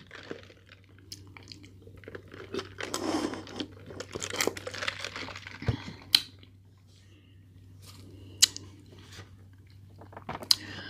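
A person chewing food close to the microphone, with wet mouth sounds, a few sharp clicks and light rustles. A low steady hum runs underneath.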